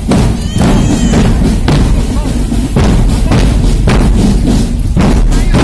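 Loud live drumming, with bass drum and snare hits keeping a steady beat of about two strokes a second.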